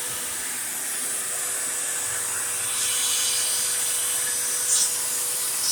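CNC router spindle and shop vacuum running together with a steady whine and hiss. About three seconds in the sound grows louder and brighter as the router bit starts into the board, with a brief sharp burst near the end.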